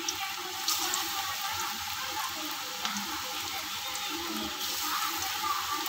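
Kuttu (buckwheat-flour) pakoras sizzling and bubbling as they deep-fry in hot oil in a kadhai on high flame.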